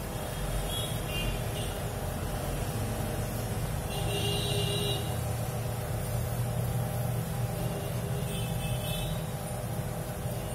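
Steady low background rumble, with a few faint, brief high tones about a second in, around four seconds in, and near the end.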